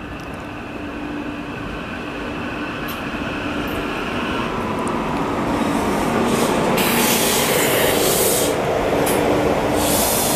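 SEPTA Regional Rail Silverliner electric multiple-unit train approaching and running along the platform. Its rumble and steady hum grow louder throughout, and a rushing hiss comes in about seven seconds in as the cars draw level.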